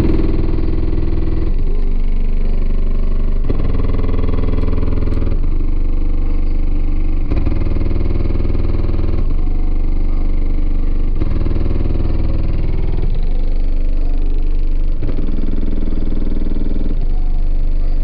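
Bass-heavy music played at high volume through a Sundown Nightshade 24-inch subwoofer in a ported box tuned to about 23 Hz, heard from outside the vehicle. The deep bass dominates, the highs are muffled, and the chords change about every two seconds.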